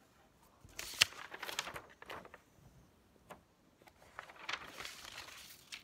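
A sheet of printer paper rustling and crinkling as it is picked up off a wooden table, held up and handled, in two stretches with a sharp tap about a second in.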